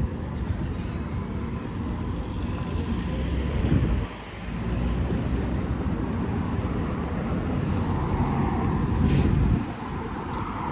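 City street traffic: a low rumble from passing vehicles that dips briefly about four seconds in and again near the end, with a short hiss just before the second dip.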